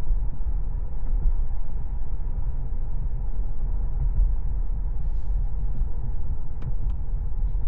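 Steady low road and tyre rumble inside the cabin of a moving Tesla electric car, with no engine note. A couple of faint clicks come near the end.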